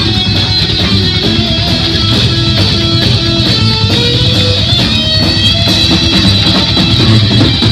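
Heavy metal band playing loud and live: electric guitar over bass and drums.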